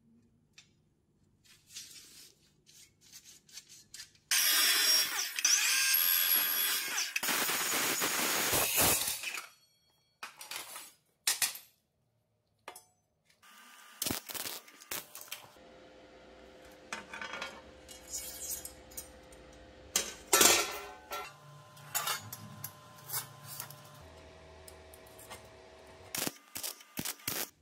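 A power tool cutting metal runs loudly for about five seconds. After it come a few short bursts, then sharp metal taps, clinks and knocks over a faint steady hum.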